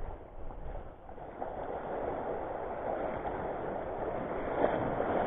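Steady rushing noise of choppy sea water and wind on the microphone, growing louder after about the first second and a half.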